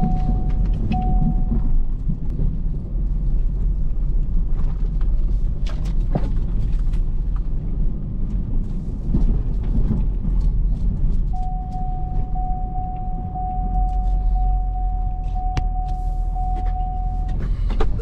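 Truck driving, heard from inside the cab: a steady low rumble of engine and road with scattered knocks and clicks. A steady high tone sounds briefly at the start and again for about six seconds in the second half.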